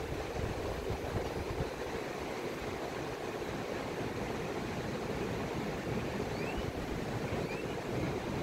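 Gulf surf washing onto the beach, heard as a steady rushing noise, with wind rumbling on the microphone. Two short rising chirps come a little past the middle.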